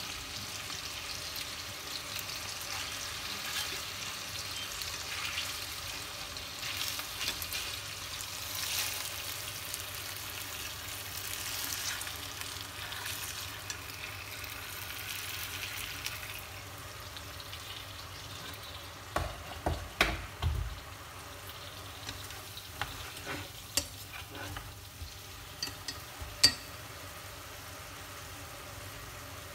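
Sweet potato greens sizzling as they stir-fry in a stainless steel pot. The sizzle is stronger in the first half and dies down after the middle. From about two-thirds in come scattered knocks and taps of wooden chopsticks against the pot, the sharpest near the end.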